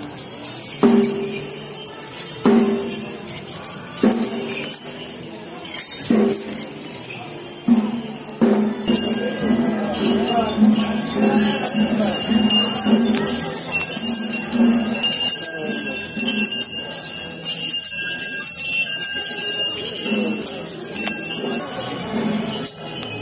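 Metal bells hung on a caparisoned temple elephant clanking and ringing as the elephant walks. The strikes come about once every second or so at first, then turn into a denser, more continuous jingle from about nine seconds in.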